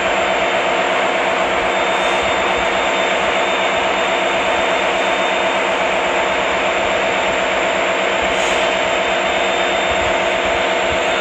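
A steady mechanical drone with a constant hum, an engine or machine running close to the microphone, unchanging in level.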